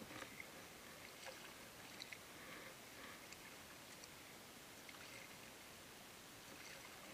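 Faint water sounds of a kayak gliding through calm water: small splashes and drips with a few light clicks, over a steady hiss.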